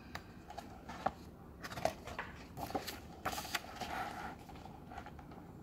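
A page of a hardcover picture book being turned, the paper rustling and crackling in a few quick bursts in the middle.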